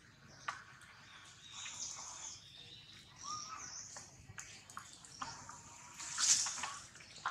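Short high-pitched animal chirps and calls over scattered small clicks and rustles, with the loudest, a brief noisy burst, about six seconds in.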